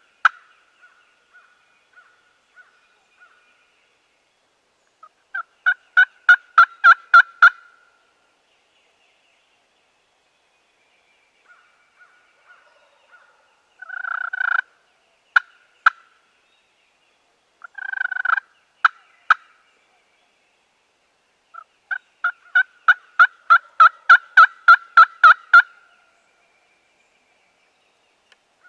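Turkey calling: runs of sharp, evenly spaced yelps, a short run early and a long run of about twenty near the end. In the middle are two rough, rattling bursts of about a second each with a few sharp clicks after them.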